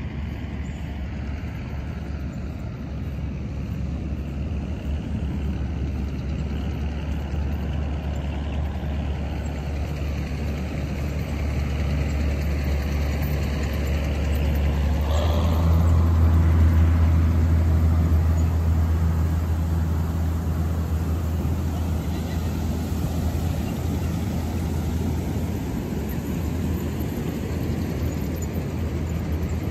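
Drone of an aircraft engine passing overhead. It builds to its loudest about halfway through, then slowly fades.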